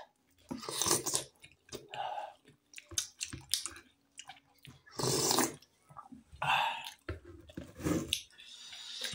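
Close-up wet chewing and mouth sounds of someone eating momo dumplings, coming in short irregular bursts.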